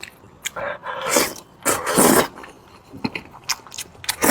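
Close-miked eating of meat: two longer wet chewing and biting bursts in the first half, then several short sharp mouth clicks and smacks near the end.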